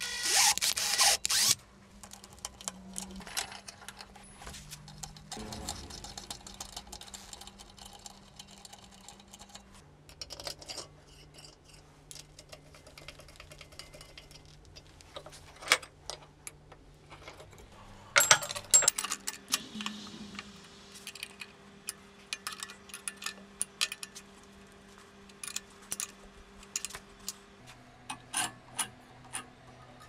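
A cordless drill running a tap into steel held in a vise for about the first second and a half, then scattered small metallic clicks and taps from handling and fitting steel parts, busiest about two thirds of the way through. A faint low hum sits underneath and changes pitch a few times.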